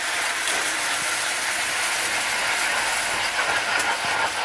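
Pineapple juice boiling hard in a pan of melted brown sugar: a steady sizzling, bubbling hiss as a wooden spoon stirs it.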